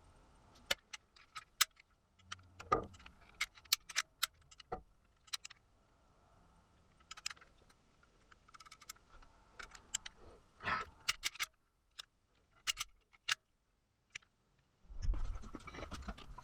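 Irregular sharp clicks and light metallic taps of small hard objects being handled, over a faint steady hum. A louder, lower handling noise starts near the end.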